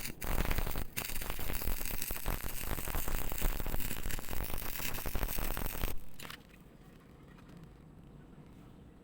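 Electric arc welding: the arc crackles and hisses steadily, then cuts off about six seconds in.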